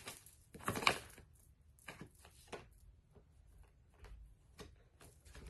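Tarot cards being handled: scattered light taps and clicks, with a short cluster of them about a second in.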